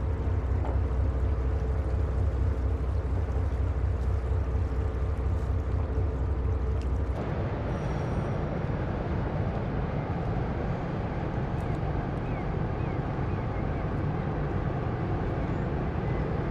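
Large ferries' engines running: a strong low rumble with a thin steady hum, changing suddenly about seven seconds in to the broader, more even rumble of a Finnlines ro-pax ferry passing close.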